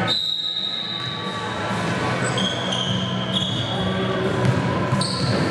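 Basketball game play: the ball bouncing on the court, with several short high squeaks from about two seconds in and voices in the background.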